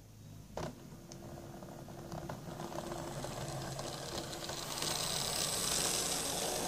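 Hornby OO gauge Class 121 DMU model running on its track. The motor gives a steady hum and faint whine, and the wheels rattle over the rails, growing louder as the railcar comes past close by. A sharp click sounds just after the start.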